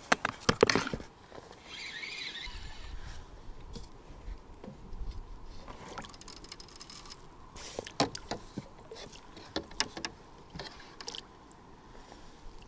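A small fish being played on a feeder rod and landed in a landing net: water splashing, with clicks and knocks from the tackle. The knocks are loudest in the first second, and a few more come later.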